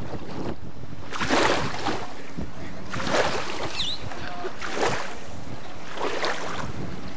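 Small sailboat under way: water washing against the hull in four louder surges about every second and a half, over steady wind noise on the microphone.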